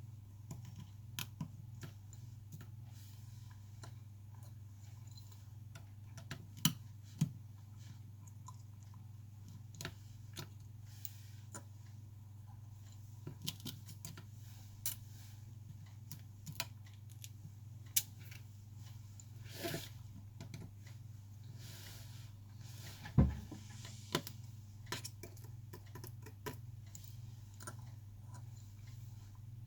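Scattered small clicks and taps of repair tools and parts being handled on an iPhone, over a steady low hum. A pair of sharper clicks comes about a quarter of the way in, and the loudest knock comes about three-quarters through.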